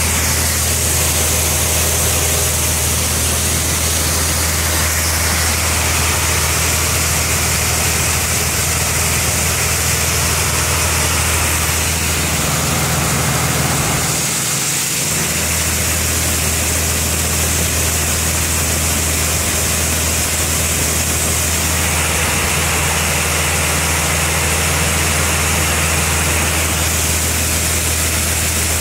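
Grain auger setup running steadily: a low, even motor-and-engine hum with a steady hiss of shelled corn pouring through the chute into the auger hopper. The sound briefly dips about halfway through, then carries on unchanged.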